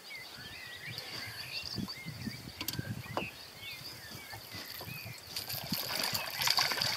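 A hooked pike splashing at the lake surface beside the boat, loudest near the end. Small birds chirp in the background throughout.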